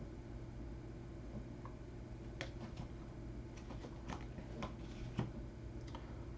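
Trading cards being handled, giving faint, irregular light clicks and ticks over a low steady hum.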